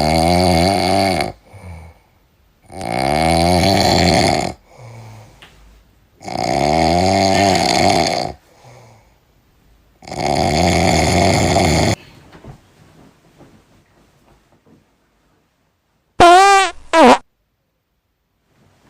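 A person snoring loudly: four long snores about three and a half seconds apart, each with a wavering pitch. Near the end comes a short, loud warbling sound in two parts.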